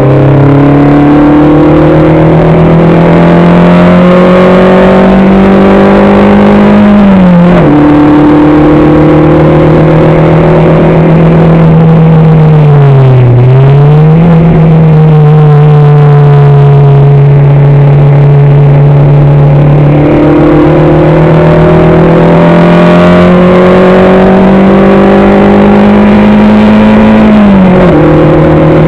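Onboard sound of a racing car's engine under hard acceleration, very loud. Its pitch climbs slowly and drops sharply at an upshift about seven seconds in, dips and recovers about halfway through, then climbs again and drops at another upshift near the end.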